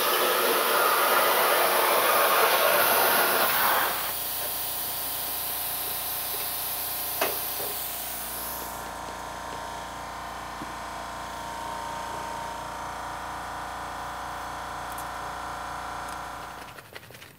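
Hypertherm Powermax 30 XP plasma cutter arc cutting through a thin painted steel panel for about four seconds: a loud, steady hiss on a second pass to finish a cut that did not go all the way through. The arc then stops, and the air hiss carries on for about five more seconds before cutting off, leaving a quieter steady hum.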